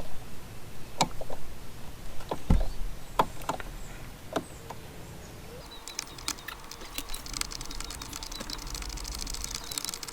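Scattered light clicks and taps, then from about six seconds in a dense, rapid crackling rustle: hands working over wires and harness connectors.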